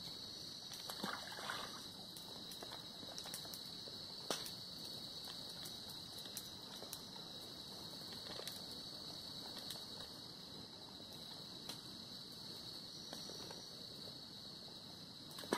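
Quiet riverside ambience: a steady high-pitched insect drone, with a few faint scattered clicks and knocks.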